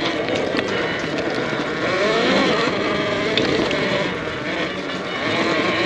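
A vehicle's motor running under load, its pitch climbing about two seconds in and then easing off.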